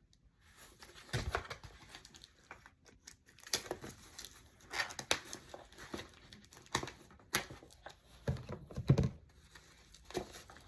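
A mailed package being opened by hand: packaging crinkling and tearing in short, irregular rustling bursts.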